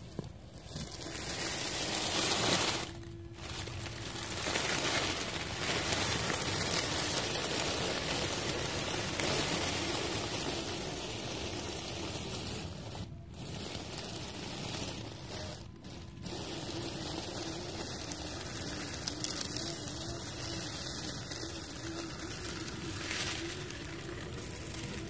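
Dry leaves crunching and rustling under a Traxxas TRX-4 RC rock crawler's tyres as it drives through the leaf litter, with a faint wavering whine in the second half. The sound cuts out briefly three times.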